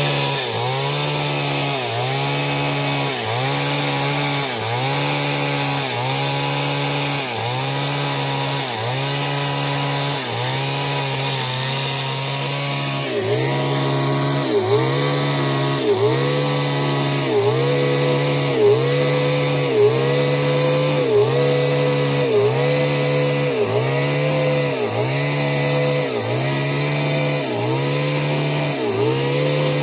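Chainsaw engine running at speed, its pitch dipping briefly about once a second, as under repeated load while cutting wood; a little louder from about halfway through.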